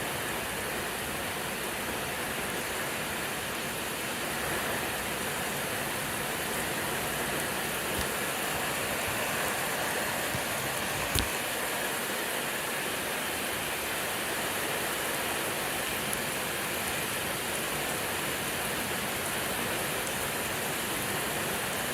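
Steady rain falling, an even hiss with no let-up, broken by one sharp click about halfway through.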